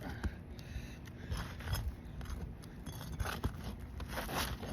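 Metal pry tool scraping and prying against asphalt roof shingles, an irregular run of scrapes with a few sharp clicks.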